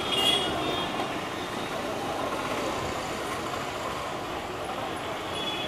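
Steady background street traffic noise, with a brief high tone near the start.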